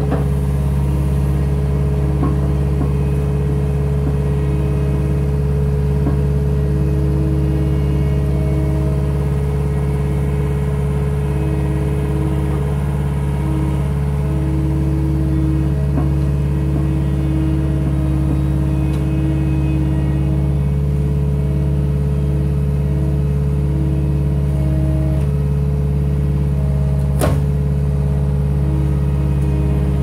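Cat 262D skid steer's diesel engine running steadily while working a log splitter, with a higher tone that comes and goes over the engine hum. One sharp crack near the end.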